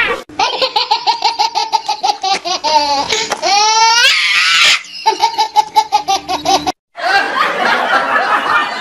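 Laughter sound effect dubbed over the clip: a quick, pulsing ha-ha-ha laugh that rises into a high squeal about midway, then carries on laughing after a short break.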